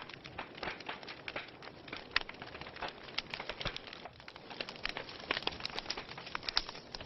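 Wood fire burning in a fireplace, with a steady hiss and frequent irregular sharp crackles and pops.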